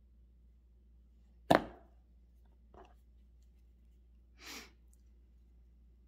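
One sharp click as a hand tool works a piece of copper wire, about a second and a half in, then a faint tick about a second later. A soft breath follows near the middle, over a low room hum.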